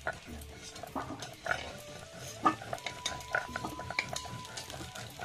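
Potato pieces sizzling in hot oil while a metal spoon stirs and lifts them out, with sharp clinks and scrapes against the pan, the loudest about halfway through.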